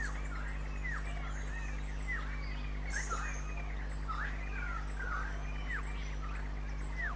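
Rainforest birds calling: many short chirps and down-slurred whistles, a few each second, over a steady low hum.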